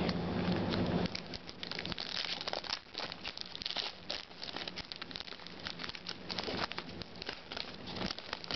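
Trading cards being handled and shuffled by hand, with the crinkle of a foil card-pack wrapper: a long run of small clicks and crackles.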